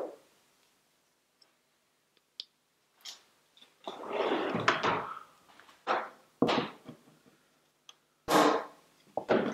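A tool drawer sliding on its runners, then several separate knocks of tools being handled and set down on a wooden bench.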